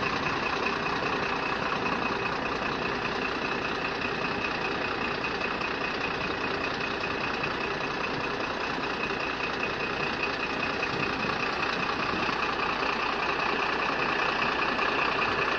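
Steady rushing noise of a running vehicle, with a faint high whine.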